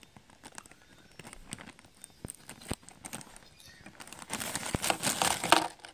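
Scissors snipping a thin plastic toy bag with a few faint clicks, then the bag crinkling, louder, as it is handled for the last second and a half.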